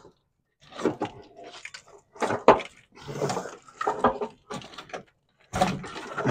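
Wiring being handled and pulled through by hand: irregular plastic rustling and crinkling with a few sharp clicks, the sharpest about two and a half seconds in.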